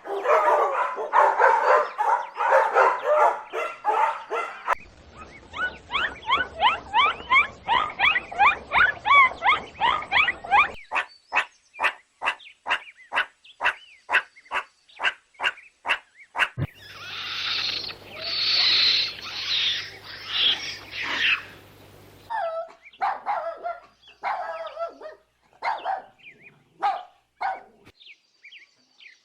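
A run of different animal calls in short separate clips that cut from one to the next, including a stretch of regular clicks at about two a second in the middle.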